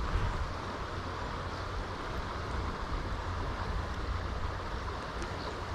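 Wind buffeting the microphone with a steady low rumble, over the continuous rush of river water flowing past.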